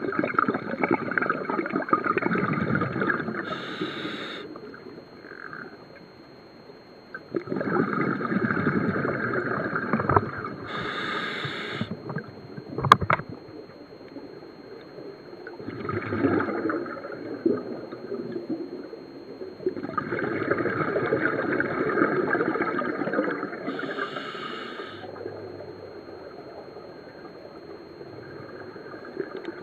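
Scuba regulator breathing heard underwater: long bubbling exhalations a few seconds each, several of them ending in a short hissing inhale through the demand valve, repeating with quieter pauses between breaths. A single sharp click about halfway through.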